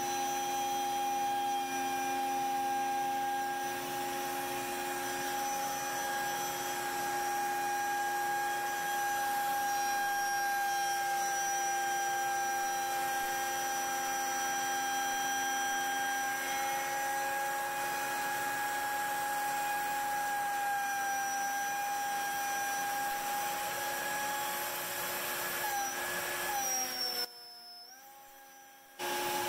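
CNC router spindle driving a large carbide surfacing bit as it planes a mesquite-and-epoxy slab: a steady high whine over the hiss of the cut and the dust extraction. Near the end the pitch dips slightly and the sound drops away for about two seconds.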